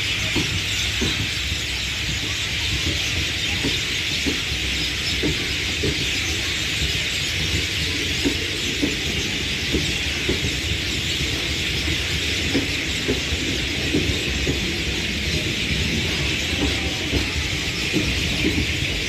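Passenger train coaches rolling away along a curve. Wheels clack irregularly over rail joints under a steady low rumble, with a continuous high-pitched squeal above.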